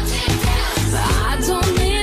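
Background pop music with a steady beat and a sung melody.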